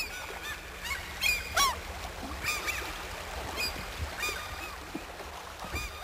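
A flock of waterbirds calling over open water: many short, high, arching calls in quick succession, over a faint low rumble.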